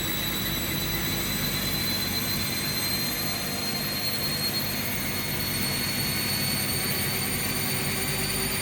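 A Bosch and a Hoover washing machine on their final spin together: a steady motor and drum hum with a high whine that slowly rises in pitch as the drums gather speed.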